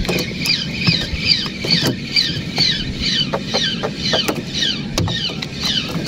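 Fishing reel squeaking in an even rhythm, about twice a second, as its handle is cranked to retrieve the line, with a few light clicks.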